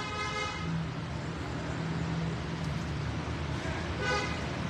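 Steady background road-traffic noise with a short horn-like toot about four seconds in.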